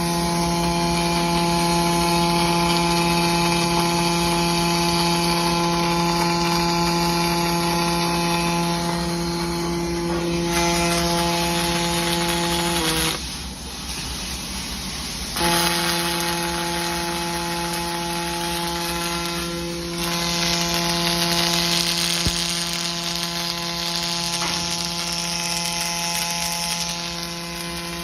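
Miller PerformArc PA-2200SS robotic welding cell running: a steady machine hum with hiss. The hum drops out for a couple of seconds about halfway through, then resumes.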